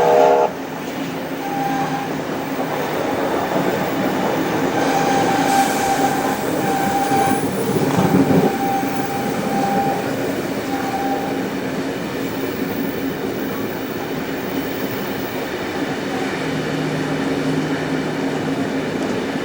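Passenger carriages behind a steam locomotive running along the track, with a steady rumble of wheels on rail and a faint, on-and-off wheel squeal. A locomotive whistle chord cuts off just after the start, and a brief louder rumble swells about eight seconds in.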